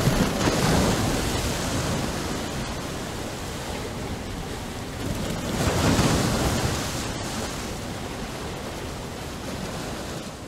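Ocean surf: a steady wash of waves with two louder surges, about half a second in and again around six seconds in.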